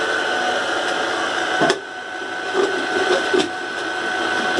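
Agarbatti making machine running with a steady motor whine. A sharp metallic knock comes a little under two seconds in, then a few duller clunks as the stainless-steel hopper is handled and set onto the machine.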